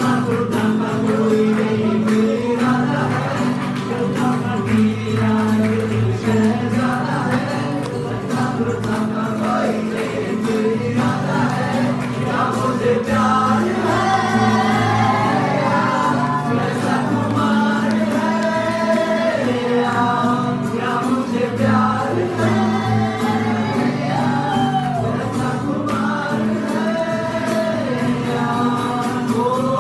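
Live acoustic band performance: two acoustic guitars strummed while a small group of male and female singers sings a Bollywood song together into microphones.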